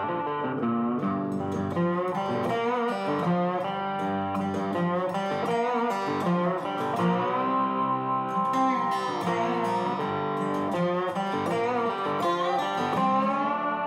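Background music: a plucked guitar playing a melody, with some notes sliding and bending in pitch.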